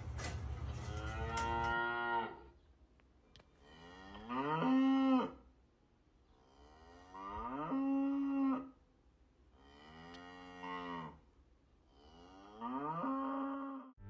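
Holstein dairy cows mooing: five drawn-out moos, each about a second long, spaced about three seconds apart.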